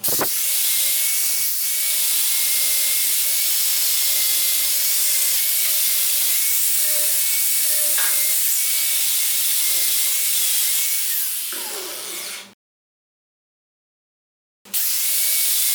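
Electric power tool running steadily under load, with a hissing abrasive sound and a motor tone that wavers slightly in pitch. It cuts off abruptly about twelve seconds in and starts again near the end.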